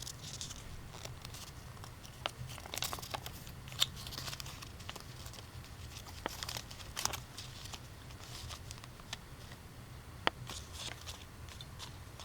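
Crinkling and scattered small clicks, as of plastic or packaging being handled close to the microphone, over a steady low hum.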